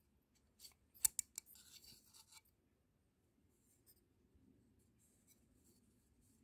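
Screwdriver tip clicking and scraping against the plastic oil filter housing cap of a Mercedes OM646 diesel while prying at an O-ring: a quick run of sharp clicks about a second in, the loudest near the start, then faint scratching and rubbing.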